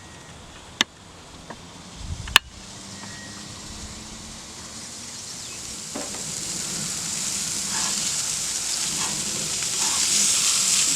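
Food sizzling in a hot pan. The sizzle grows steadily louder, after two sharp clicks in the first few seconds.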